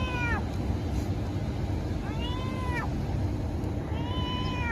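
Cat meowing three times about two seconds apart, each meow rising then falling in pitch, over a steady low background rumble.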